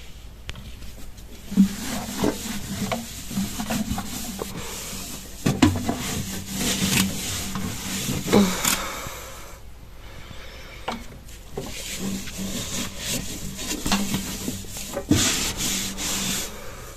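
Green scouring sponge scrubbing the plastic walls inside a microwave oven: repeated rubbing strokes in two spells with a short lull about halfway through, and a few sharp knocks.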